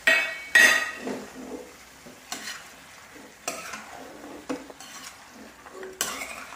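Spatula stirring marinated chicken pieces and chopped garlic in a non-stick kadai, scraping against the pan in irregular strokes, the two loudest right at the start. Frying sizzle runs underneath.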